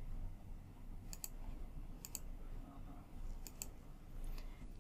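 Computer mouse clicking several times, sharp clicks spaced about a second apart, some in quick pairs, over faint room hum.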